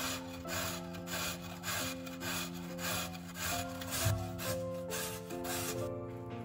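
Raw potato grated on a metal box grater: a rasping stroke about twice a second, stopping shortly before the end. Soft background music with held notes plays underneath.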